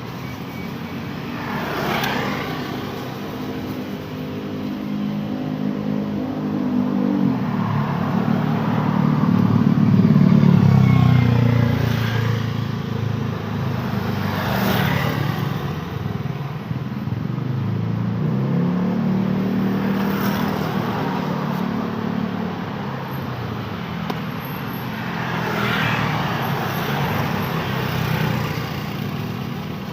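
Traffic on a busy road, with cars and motorcycles passing one after another. Engine notes and tyre noise swell and fade with each pass, and the loudest engine goes by about a third of the way in.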